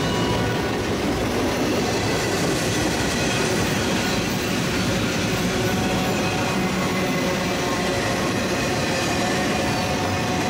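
Norfolk Southern double-stack container train rolling past: a steady, unbroken rumble of steel wheels on the rails, with faint high steady tones over it.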